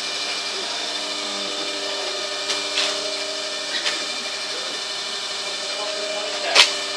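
Old screw-driven universal testing machine running steadily with a motor hum while it compresses a wooden specimen, and the wood gives a few sharp cracks under the load, the loudest near the end.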